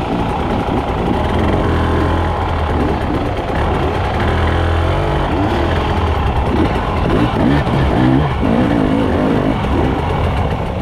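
Husqvarna TE 300i two-stroke dirt bike engine revving up and down under repeated throttle blips, its pitch rising and falling again and again while it picks through a rocky climb.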